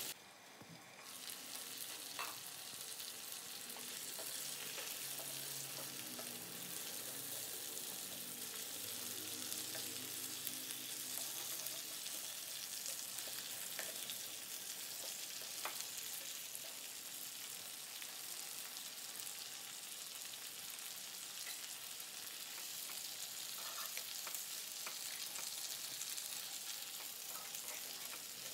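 Tandoori-marinated chicken leg pieces sizzling steadily in oil in a nonstick frying pan, with occasional taps and scrapes as a wooden spatula turns the pieces.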